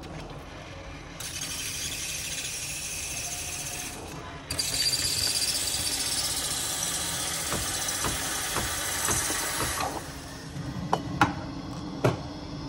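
Breville Barista Express steam wand purging into the air: a hiss of steam starts about a second in, dips briefly, then comes back stronger with a high whistle in it and stops about ten seconds in. A few sharp knocks follow near the end as the metal milk pitcher is handled.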